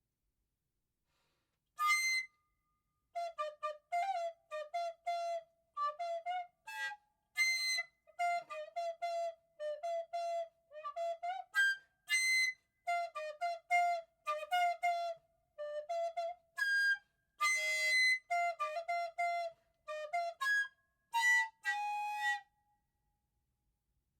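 A flute-like wind instrument carved from a giant daikon radish, playing a tune in short, detached notes with some higher leaps.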